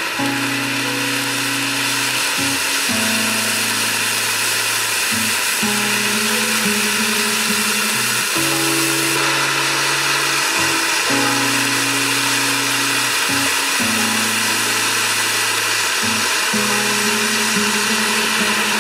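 Starget Neon Parrot cone fountain firework spraying golden sparks with a steady rushing hiss that grows a little louder over the first few seconds. Background music with a slow, repeating low line plays along.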